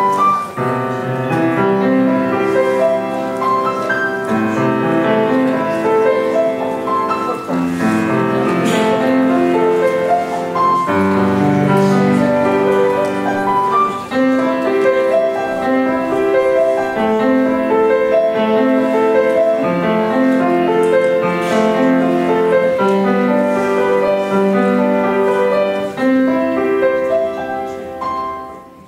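Solo piece played on a Petrof grand piano, a continuous run of melody over repeated low chords. Near the end the playing fades and the last notes die away.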